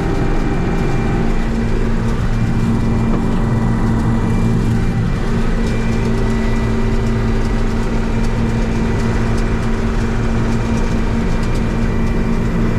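John Deere 6620 combine running steadily under load while harvesting corn, its diesel engine and threshing machinery making a constant drone.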